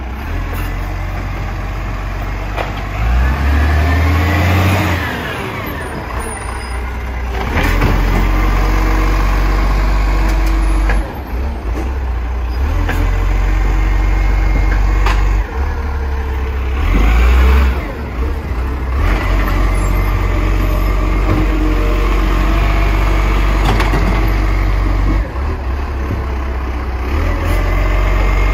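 Garbage truck's diesel engine running loud and low, revving up and back down a few seconds in, with a few sharp clunks at intervals.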